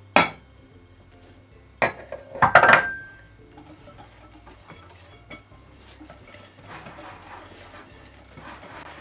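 Spoon clinking and knocking against a mixing bowl: one sharp clink just after the start, then a cluster of knocks about two to three seconds in, one of them ringing briefly. Softer scraping follows as the flour is stirred into the chocolate batter.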